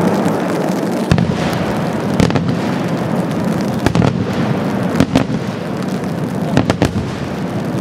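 Large aerial firework shells bursting several hundred metres away: about half a dozen sharp reports spread through, over a steady hiss.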